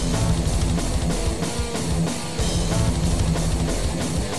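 Rock music with a drum kit and guitar, the drums keeping a steady, evenly spaced beat.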